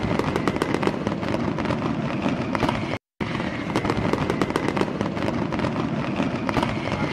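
Fireworks sound effect: a dense crackling and popping that breaks off for a moment about three seconds in, then resumes.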